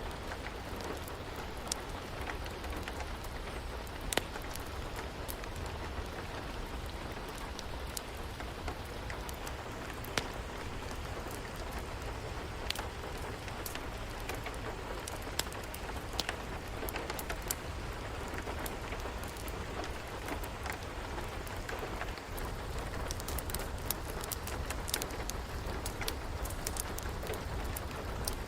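Steady rain falling, with scattered sharp pops and crackles of a wood fire in a fireplace.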